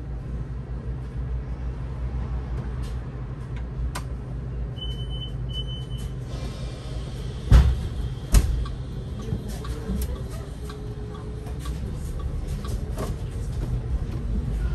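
Solaris Urbino 18 IV articulated city bus heard from the driver's cab, its drive running with a steady low rumble. About five seconds in come two short high beeps, then a hiss of air and two heavy thumps about a second apart, typical of the bus's doors working at a stop, followed by light clicks.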